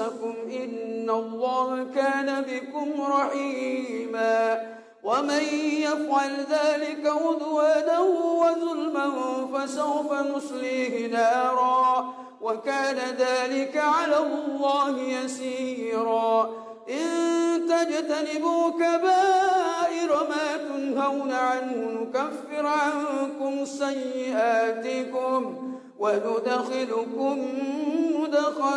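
A male imam chanting Qur'anic recitation in a slow, melodic style during prayer. He holds long, ornamented notes in phrases of several seconds, with a short pause for breath between each phrase.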